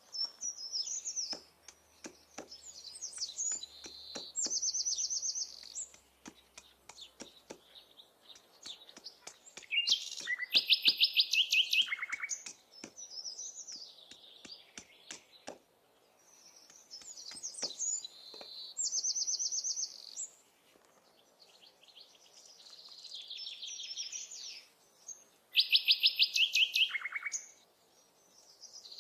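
Songbirds singing, several different songs in turn. A loud trilled phrase that drops in pitch comes twice, near the middle and near the end. A run of light clicks and taps falls in the first several seconds.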